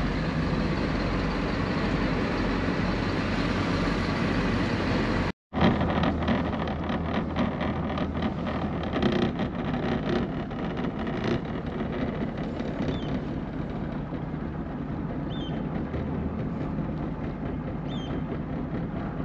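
Inboard diesel engines of a motor cruiser running steadily under way, a low drone heard from the helm cabin, broken by a brief dropout about five seconds in. The engine drone then carries on with wind and water noise from the foredeck, and a few short high chirps near the end.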